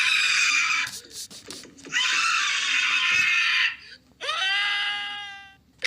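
Animated cartoon characters screaming in quick succession. Two harsh, raspy screams come first, with a short break between them. Then, about four seconds in, a clear high-pitched wail slides and fades away.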